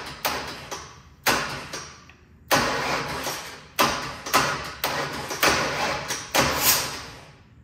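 Ford V8's starter motor bumped over in about a dozen short bursts from a remote starter switch, one longer crank about two and a half seconds in. The engine is being inched round to top dead center on cylinder number one's compression stroke.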